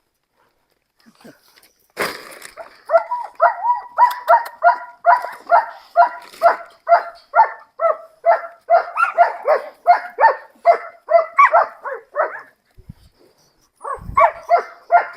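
A dog barking rapidly and steadily, about three barks a second, for some ten seconds. It starts about two seconds in, pauses briefly near the end, then starts again.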